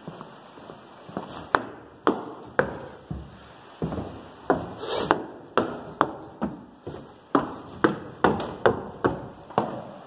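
Footsteps on a wooden floor, walking at about two steps a second, each step a sharp knock.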